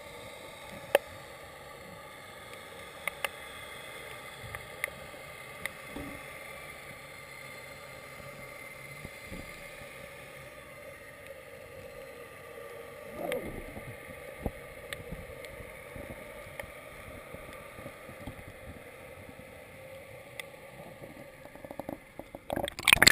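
Underwater sound picked up through a GoPro's waterproof housing: a steady muffled hiss with scattered sharp clicks. Near the end, loud sloshing and splashing as the camera is pulled up through the surface.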